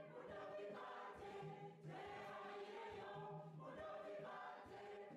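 Faint background music: a choir singing held chords, changing about every second.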